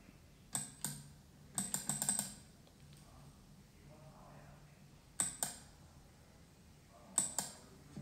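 Computer mouse button clicking: two clicks about half a second in, a quick run of clicks near two seconds, then pairs of clicks about five and about seven seconds in.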